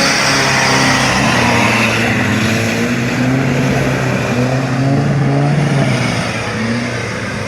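A 4x4 vehicle's engine revving and pulling under load off-road, its pitch shifting up and down, over a steady loud hiss. It eases off a little near the end.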